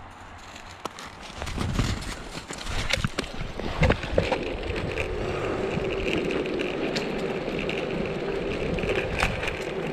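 Air-filled wheels of a dog-pulled mountainboard rolling on an asphalt path. A few knocks and scrapes come as it gets going, then a steady rolling noise from about five seconds in.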